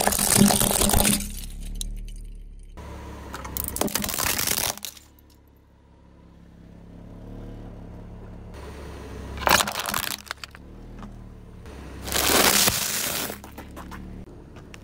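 Car tyre rolling over and crushing hollow plastic toys and a packet of crunchy cereal: four separate bursts of plastic cracking and crunching, at the start, about four seconds in, about nine and a half seconds in, and about twelve seconds in, with a low rumble between them.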